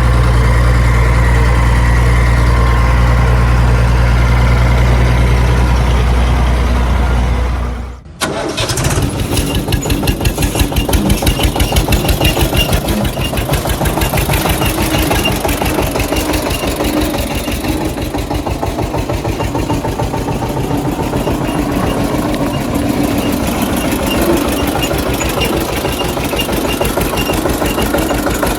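A heavy engine running with a steady low drone that breaks off sharply about eight seconds in. A different engine then takes over, running with a quick, even chug.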